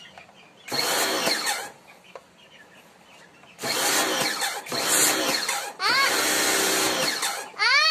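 Kawasaki electric high-pressure washer running in several short bursts of about a second each, with quieter gaps between them, as its spray-gun trigger is squeezed and released. The motor's whine rises in pitch as it spins up at the start of some bursts, over the hiss of the water jet.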